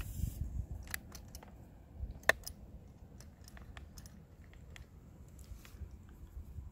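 Light scattered clicks and taps from a steel camp cup on a cord being let down over rock toward the water, with one sharper knock a little over two seconds in, over a low rumble.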